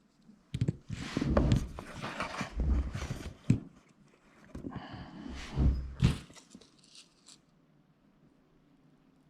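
Irregular handling noises: knocks, clatter and rustling as objects are moved about by hand, dying away about seven seconds in.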